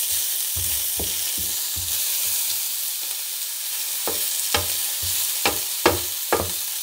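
Sliced carrots and green beans sizzling in olive oil in a stainless steel pan, stirred with a wooden spatula that scrapes and knocks against the pan. The hiss of frying is steady, and the knocks come faster and sharper in the second half.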